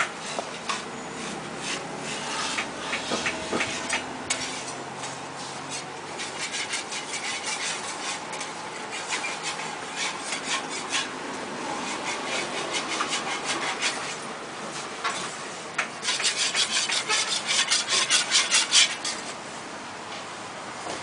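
Repeated scraping of a metal spatula over a large round metal griddle, loosening a thin jianbing crepe from the plate. It ends in a faster, louder run of about four scrapes a second.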